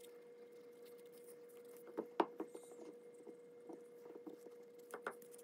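Light handling noises: a scatter of soft taps and clicks from the first couple of seconds on, the sharpest about two seconds in, as fingers take wax from a jar and rub it onto a stiff leather toy axe with a wooden dowel handle. A faint steady hum runs underneath.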